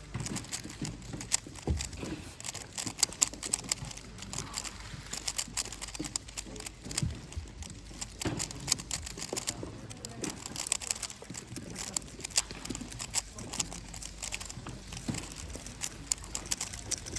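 Plastic speed cube, a Moyu Weilong GTS VII, being turned fast one-handed in a solve: a steady stream of quick, irregular clicks and clacks.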